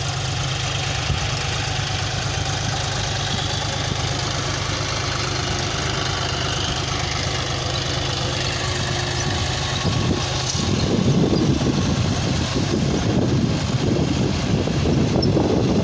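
John Deere 5105's three-cylinder diesel engine running steadily under load while the tractor pulls a tined cultivator through the soil. From about ten seconds in, a rough, gusty rushing noise rises over the engine.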